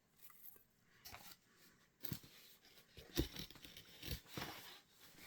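Parcel packaging being torn and handled open, faint short tearing and rustling sounds in irregular bursts, the strongest about three seconds in.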